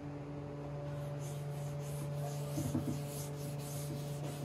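A cloth rubbing a finish over a bare pine panel in repeated strokes, about two to three a second, a soft scratchy swish, over a steady low hum.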